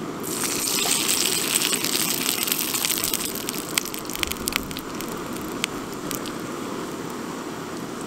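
Dough rolls frying in hot oil in a small pan over a gas cartridge stove. They are turned about half a second in, and the oil bursts into a loud sizzle with sharp spitting crackles. After a few seconds it settles to a steadier sizzle over the burner's steady rush.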